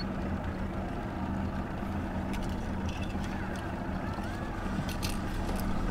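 Boat motor running steadily at trolling speed, a low even hum.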